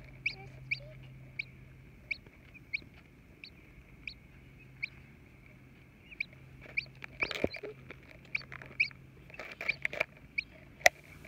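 Baby chick peeping: short, high, falling peeps, roughly one or two a second, from a chick hatching under a broody hen. Some rustling and knocks join in during the second half.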